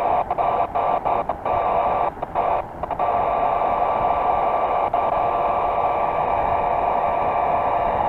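Steady rushing wind noise on a paraglider's harness-mounted camera in flight, dipping briefly several times in the first three seconds.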